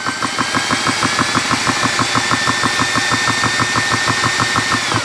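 GX CS2 portable HPA compressor's electric piston pump running on a DeWalt tool battery on its first power-up: a rapid, even pulse of piston strokes under a steady whine that creeps slightly higher. Right at the end it is switched off and the whine falls away.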